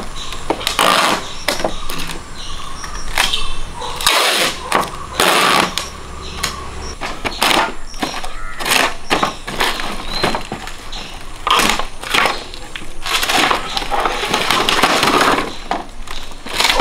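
Empty plastic bottles clattering and crackling as they are handled and laid into a wooden jig: an irregular string of sharp knocks and crinkles of thin plastic against plastic and wood.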